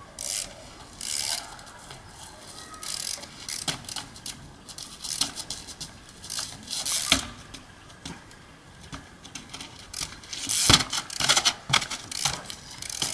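Trials bicycle ridden over rock: the freewheel ratchet clicks as the pedals are kicked back, with sharp knocks from the wheels landing and short scraping hisses. The loudest moments come about seven seconds in and again near eleven seconds.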